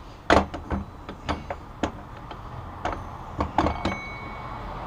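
Metal parts of a Honda CB750 gearbox shifter assembly, the shift forks, shift drum and guide, being handled and fitted in the crankcase: a run of about ten irregular sharp clicks and knocks. The loudest is a little after the start, and one near the end rings briefly.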